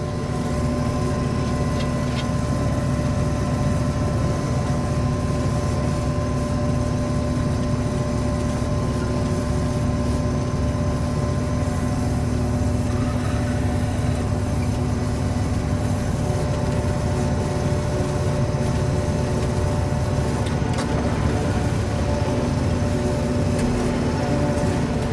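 John Deere 5830 self-propelled forage harvester running steadily while chopping corn, heard from inside its cab: an even mechanical drone with a constant hum.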